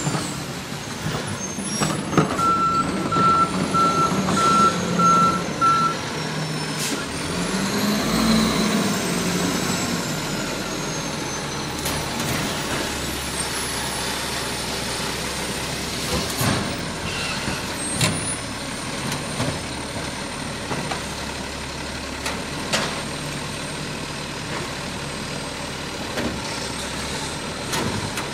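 Waste Management garbage truck's diesel engine running, with its reversing alarm beeping steadily for a few seconds about two seconds in. The engine revs up briefly around eight seconds, and several sharp knocks follow later over the steady engine.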